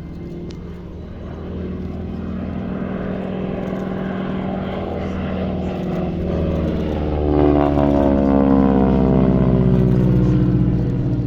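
North American T6 Harvard's nine-cylinder Pratt & Whitney Wasp radial engine and propeller in a flyby: the engine note grows louder as it approaches, then its pitch drops as it passes about seven to eight seconds in, staying loud before starting to fade near the end.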